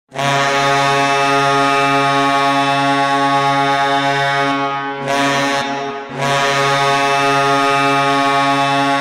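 Hockey goal horn blasting a loud, low multi-tone chord, held as one long blast that breaks off briefly twice around the middle before sounding again.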